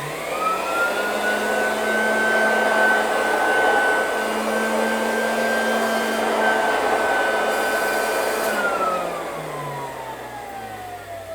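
1938 General Electric vacuum cleaner's motor spinning up to speed with a rising whine, then running steadily. About eight and a half seconds in it is switched off and winds down, its whine falling in pitch and fading.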